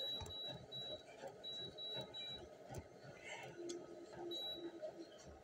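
Running footfalls on a treadmill: faint, repeated thuds several times a second, with short high-pitched tones sounding on and off.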